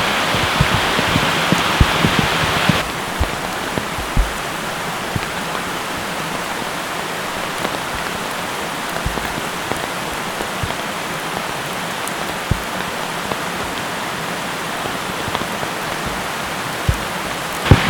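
Steady rushing of a waterfall on a mountain stream. About three seconds in the sound cuts abruptly to a duller, lower rush, with scattered low thumps.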